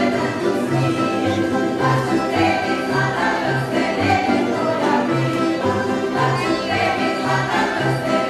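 Croatian folk dance music from Moslavina: group singing over instrumental accompaniment, with a steady bass beat about twice a second.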